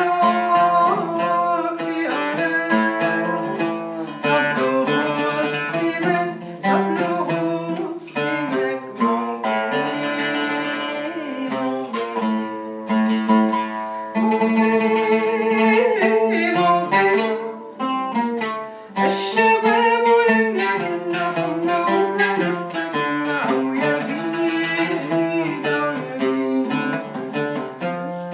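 An oud being played, with plucked melodic lines and quick runs of notes, while a woman sings along.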